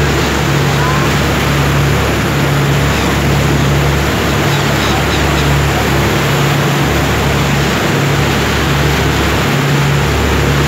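Tour boat's engine drone, a low hum with a note that swells and fades about once a second, under the steady rush of the churning wake.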